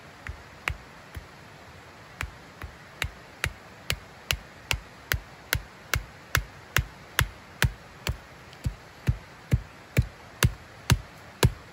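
A rapid, regular series of sharp knocks, like repeated blows on wood: a few scattered at first, then a steady run of about two and a half a second that grows louder near the end.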